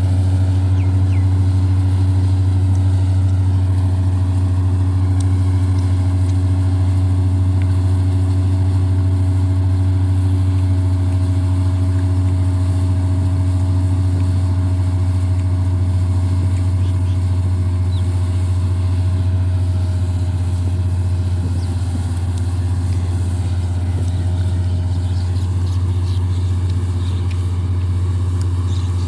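Combine harvester's engine running steadily at work, a constant low drone with a steady hum above it.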